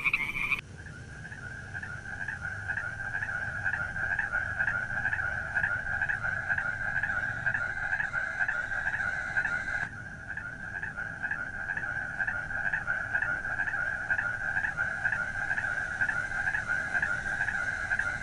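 Frog calling at night in a long unbroken run of rapid, evenly repeated croaks, about five a second, all at the same pitch. A different, higher-pitched frog call cuts off just after the start.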